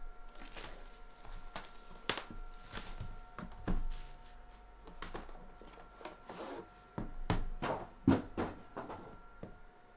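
Plastic wrap crinkling and rustling as it is pulled off an aluminium card case, with handling knocks of the case in its cardboard box; a string of short swishes and thunks, loudest about two seconds in and again past the middle.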